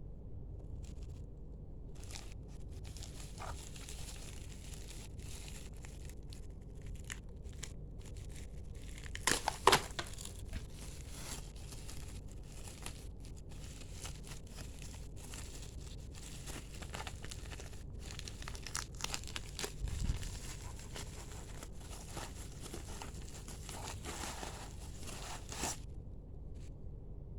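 Packaging being handled and unwrapped: irregular crinkling and tearing of wrapping, with a sharper knock just before ten seconds in, over a steady low hum.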